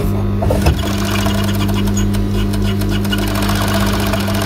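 Sewing machine stitching through folded fabric: a steady motor hum, with fast, even needle clatter that starts under a second in and runs on.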